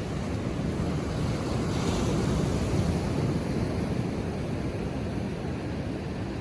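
Ocean surf breaking on a beach, a steady wash that swells to a louder crash a couple of seconds in and then eases off, with some wind on the microphone.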